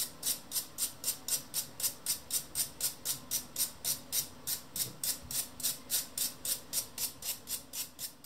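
A stiff brush scrubbing rust off an antique moulding plane's steel cutting iron in quick, even strokes, about four a second.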